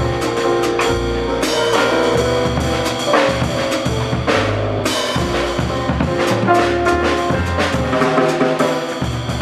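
Jazz piano trio playing live: grand piano chords and lines over bass, with busy drum-kit playing and frequent drum and cymbal strokes.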